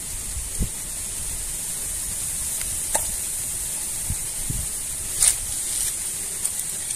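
Steady high hiss with a few scattered faint clicks and soft low knocks: pliers and hands working a hooked frog lure out of a snakehead's mouth.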